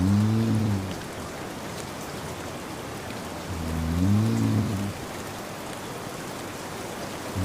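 A man snoring in his sleep over steady rain: low, droning snores about a second long, one every three and a half seconds or so, louder than the even hiss of the rain.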